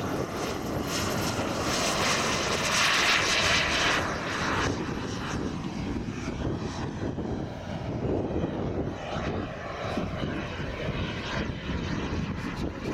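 Turbine engine of a radio-controlled F-16 model jet at high power on takeoff: a loud jet whine and hiss, loudest about two to four seconds in, then fading as the jet climbs away.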